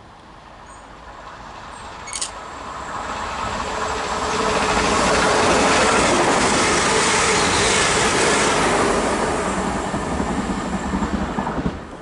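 Electric multiple-unit passenger train passing through a station at speed. The rush of wheels and air builds up to a loud peak, turns into quick rattling clatter as the last cars go by, and then cuts off suddenly.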